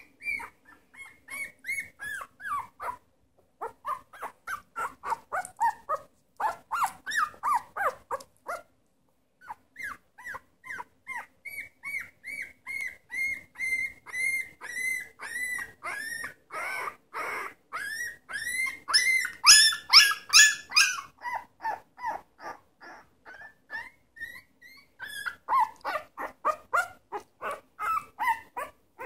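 Newborn red Shiba Inu puppy whimpering and squeaking: a fast run of short, high rising-and-falling squeaks, several a second, broken by a couple of brief pauses, with a louder, shriller stretch about two-thirds of the way through.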